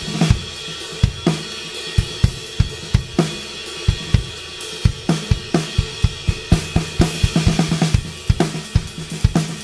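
Background music with a busy drum-kit beat: regular kick and snare hits under cymbals and hi-hat.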